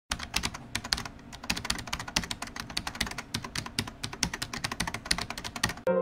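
Rapid, irregular typing on a computer keyboard, many key clicks a second. It stops near the end, when piano music begins.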